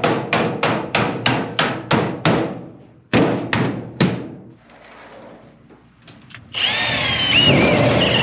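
Hammer blows on sheet-metal ductwork, about three sharp strikes a second, then three more after a short pause. Near the end a power drill runs on sheet metal for about two seconds, with a wavering whine.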